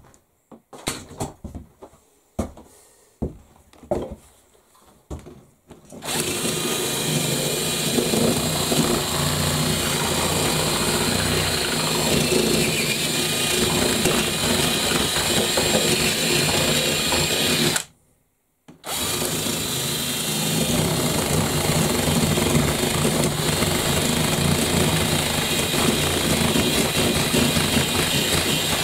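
Cordless drill boring into a wooden workbench top. A few knocks and clicks come first, then the drill runs steadily for about twelve seconds, stops briefly, and runs again for about ten seconds.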